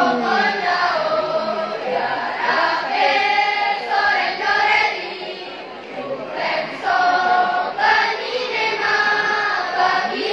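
School choir of teenage students singing together in held, sustained chords, with a short lull about halfway through.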